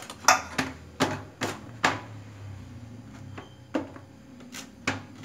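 Sharp clacks of a metal baking pan and utensils handled on a stone countertop as a baked pizza base is set into the pan and shifted about. There are about five knocks in the first two seconds, a lull, then three more near the end.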